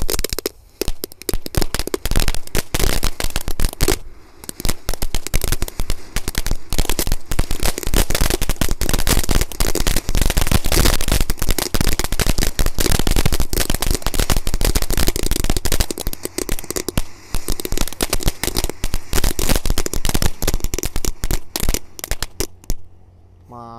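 Crackling fountain firework going off inside a plastic pipe sunk in the ground: a dense, continuous stream of sharp crackles and pops, with brief lulls early on, dying away near the end.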